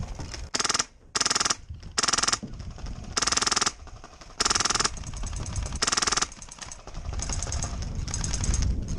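HPA-powered airsoft RPK firing on full auto in six short bursts of about half a second each, then fainter rapid fire in the last couple of seconds.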